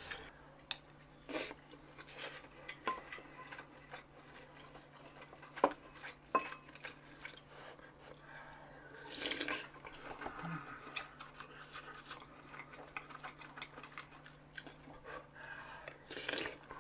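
A person eating beef intestine hotpot: quiet chewing, with utensils now and then clicking sharply against the dishes. There is a short louder noisy stretch about nine seconds in, and a faint steady hum underneath.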